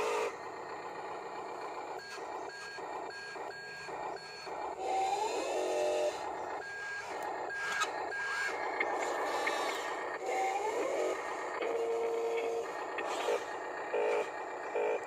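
Toy Huina RC wheel loader reversing, its sound module giving a string of short evenly spaced reversing beeps, over the whir of its small electric drive motors rising in pitch as it moves.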